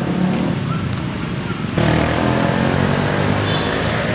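Steady motor traffic noise with an engine running, jumping abruptly louder about two seconds in.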